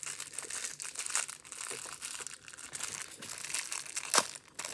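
Packaging crinkling and tearing as a small squishy toy is unwrapped by hand, with a sharp click about four seconds in.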